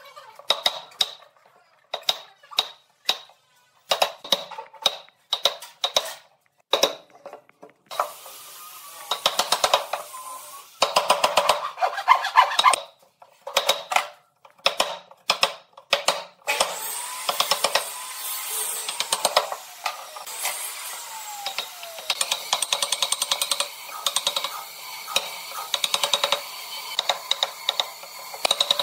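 Woodworking tools on wood: a string of sharp taps and knocks, then, about eight seconds in, bursts of fast rasping cutting that settle into a longer stretch of steady rasping with a brief whine that slides in pitch.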